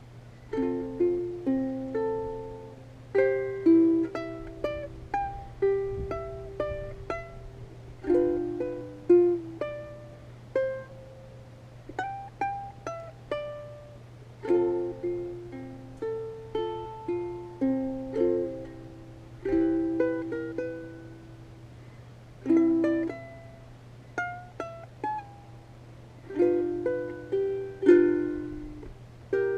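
Music on a plucked string instrument: phrases of picked notes, each ringing and fading, over a steady low hum.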